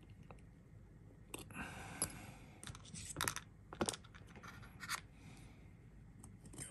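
Irregular small clicks, taps and short scrapes of a small screwdriver and hand tools working on a brass rebuildable tank atomizer deck. The tools are set down on a rubber build mat. The sharpest clicks come about two to four seconds in.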